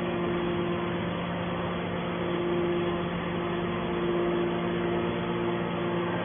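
Hydraulic metal baler running with a steady mechanical hum, a higher tone breaking in and out every second or two.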